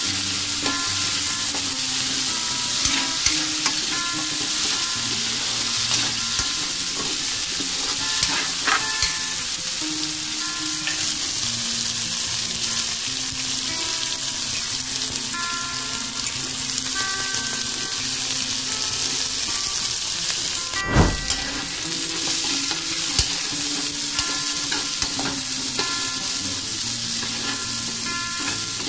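Diced potatoes and carrots sizzling in oil in a metal wok, stirred with a metal spatula that scrapes and clicks against the pan. One sharp knock about 21 seconds in.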